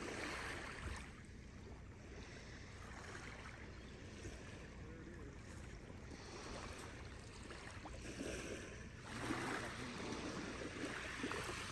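Quiet shoreline ambience: a low steady rumble with gentle water sounds at the edge of a calm bay, a little louder about nine seconds in.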